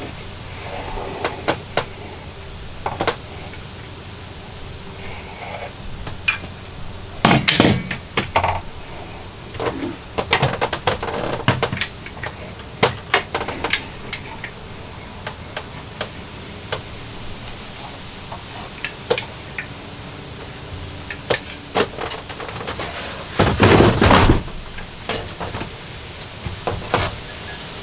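Irregular knocks, taps and clatter of hand tools and a shower pan being handled and shifted, with louder bumps about seven seconds in and again near the end as the pan is lifted.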